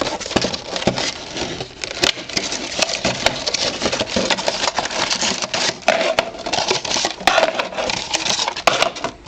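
A sealed trading card box being unwrapped and opened by hand: a continuous crinkling and tearing of plastic wrap and cardboard, full of small sharp clicks and crackles.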